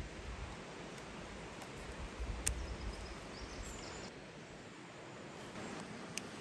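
Quiet outdoor ambience with light handling sounds of a knife and multi-tool on a log: a few dull knocks and one sharp click about two and a half seconds in, with another click near the end.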